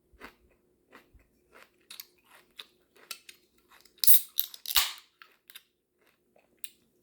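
A person chewing food with their mouth open: a run of short, sharp, wet smacks and crunchy clicks, loudest in a burst about four to five seconds in.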